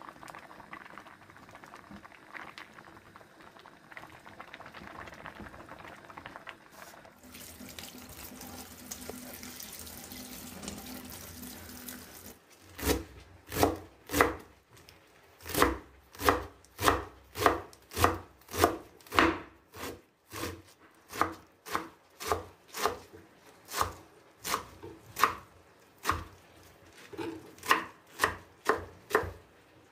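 A pot of saag greens bubbling at the boil and being stirred. Water runs for a few seconds. From about halfway on, a large kitchen knife chops spinach leaves on a wooden cutting board in steady, even strokes, about one and a half a second, louder than everything before.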